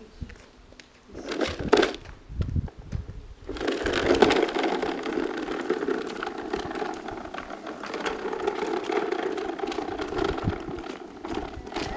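Hard plastic wheels of a toy dump truck rolling over rough asphalt as it is pulled along on a string: a few knocks, then a steady rattling rumble that starts about three and a half seconds in.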